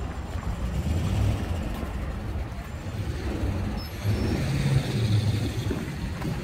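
Road traffic passing: a steady low rumble of car and truck engines and tyres, growing louder about four seconds in.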